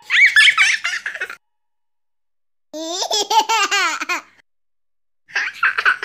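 A small child laughing in three separate bursts of quick, bouncing laughs, with silent gaps between them.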